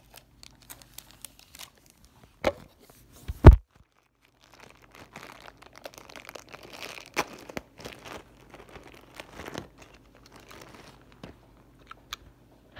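Clear plastic bag crinkling and tearing as a remote control is unwrapped, in a dense run of small crackles. A single loud knock comes about three and a half seconds in.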